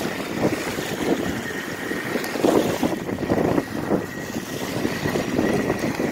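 RC boat's motor whining steadily out on the water, over gusty wind noise on the microphone and small waves.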